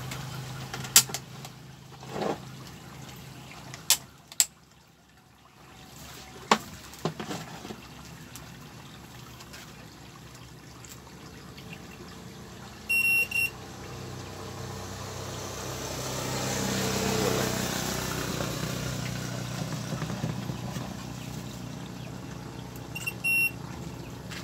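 Two short beeps from a multimeter, about ten seconds apart, as its probes are put to the wiring of an aluminum cutting saw that will not start, with scattered sharp clicks from handling the leads. A broad rush of noise swells and fades in the middle.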